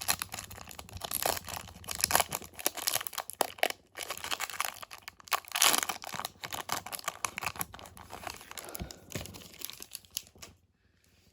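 Crinkly wrapper of a 1992 O-Pee-Chee Premier hockey card pack being torn open and crumpled in the hands, a dense run of irregular crackles that dies away near the end.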